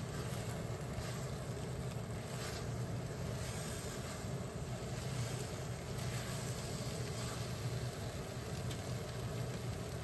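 Tofu, egg and garlic chives sizzling in a steel wok as they are stir-fried with a ladle, with a steady hiss over a steady low hum.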